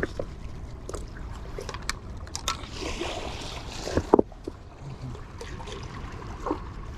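Water splashing and sloshing, with a burst of splashing from about two and a half to four seconds in and a few sharp knocks and clicks near the four-second mark, over a low steady rumble.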